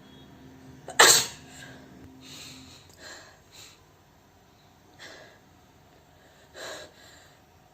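A woman sneezes once, loudly and without covering her nose, about a second in. A few much quieter short breaths or sniffs follow.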